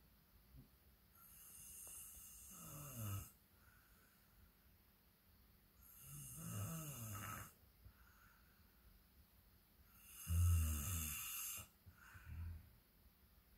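A sleeping person snoring loudly: three long snores about four seconds apart, the third the loudest, then a short one.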